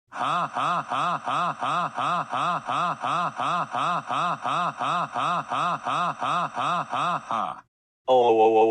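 A pitched electronic sound effect, each note rising and falling in pitch, repeated evenly about three times a second; it stops about seven and a half seconds in. After a short silence a louder, steady electronic tone starts near the end.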